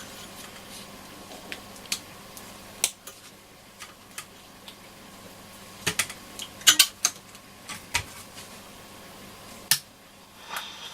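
Scattered light clicks and taps of small parts being handled on a transistor radio, with a quick cluster of clicks a little past the middle.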